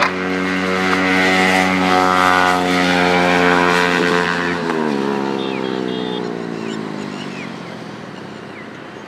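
Yamaha MT-15 single-cylinder engine through a loud SC Project aftermarket exhaust as the bike rides past at a steady engine note. About five seconds in the pitch drops sharply as it passes, and the sound then fades as it rides away.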